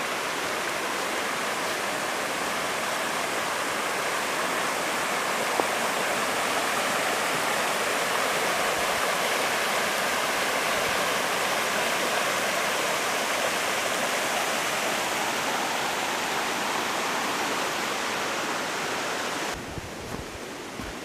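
Shallow mountain stream flowing over rocks: a steady rush of water, a little louder in the middle, that drops away suddenly near the end.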